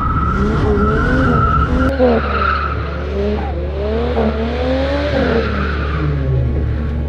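Turbocharged Ford AU Falcon ute drifting with its tyres squealing and skidding, the engine revs climbing and dropping several times. The car is held in first gear because the gearbox will not go into second, which is put down to a failing clutch.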